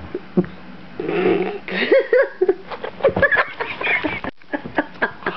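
Close-up handling noise: rustling and many sharp clicks and knocks as a hand works right by the microphone, with a few short pitched sounds about two seconds in.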